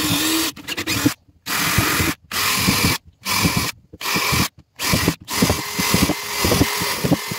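Bosch cordless drill boring holes through a Sportspal canoe's aluminium hull. It runs in short bursts of under a second with brief stops between them, then a longer run near the end with a rapid chatter as the bit cuts through the metal.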